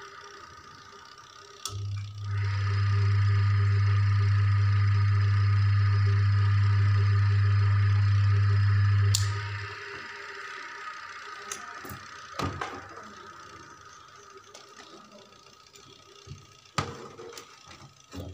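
Washing-machine wash motor switched on with a click about two seconds in, running with a steady low electrical hum, then switched off about nine seconds in and dying away briefly. A few light clicks and knocks follow as the switches are handled.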